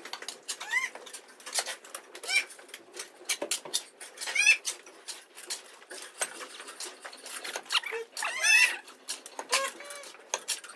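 A shovel scraping and turning a pile of mixed cattle feed on a concrete floor. Short, high chirping animal calls come again and again over it; the loudest are about four and eight and a half seconds in.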